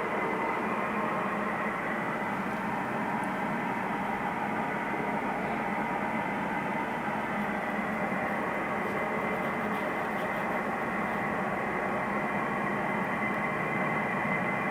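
A steady droning din from the sky, made of many faint tones held together without a break. It is the unexplained 'strange sound in the sky'.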